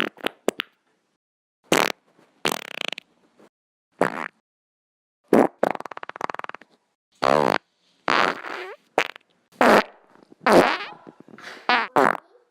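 A string of about a dozen cartoon fart sound effects, one after another with short silent gaps, varying in length and pitch: some short blasts, some longer ones bending in pitch, and a fast rattling one about six seconds in.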